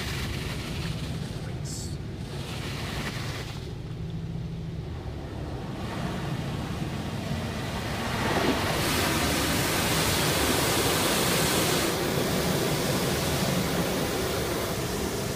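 Touchless car wash's high-pressure water jets spraying over the car, heard from inside the cabin: a steady rushing hiss over a low hum, growing louder about halfway through and easing a little after.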